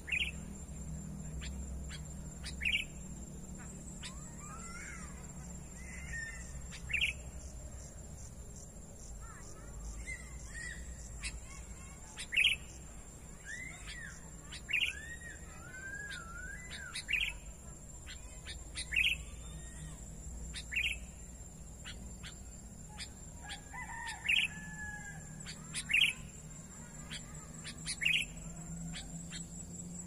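Sooty-headed bulbuls (kutilang) calling: short, sharp call notes roughly every two seconds, with softer warbling phrases between them.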